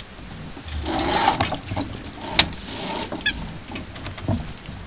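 Someone shifting about in a small fibreglass dinghy: rustling and scattered knocks, with one sharp click about halfway through and a short run of ticks soon after.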